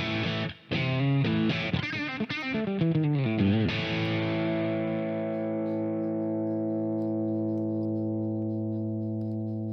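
Background music on guitar with effects: a quick run of changing chords, then, a few seconds in, one chord struck and left to ring on steadily.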